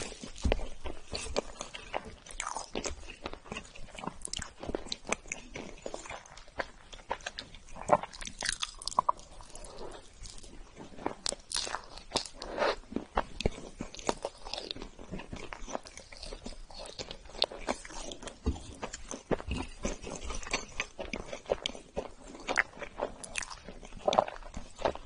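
Close-miked chewing and biting of chocolate layer cake topped with chocolate curls, with irregular crunches and small wet mouth clicks.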